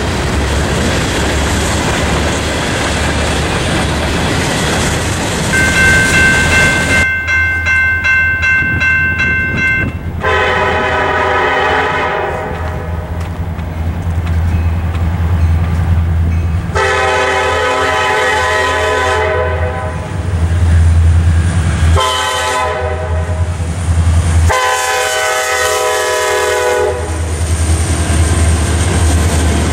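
A freight train rolling past, its cars clattering on the rails. Then a CSX SD70ACe locomotive's air horn sounds the grade-crossing signal, two long blasts, a short one and a long one, and the locomotive rumbles past close by near the end.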